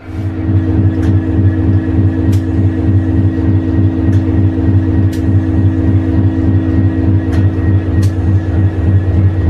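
Class 66 diesel locomotive's EMD 710 two-stroke V12 engine running steadily, heard at the brake frame inside the locomotive's body: an even, pulsing low rumble with a steady hum above it and a few faint ticks.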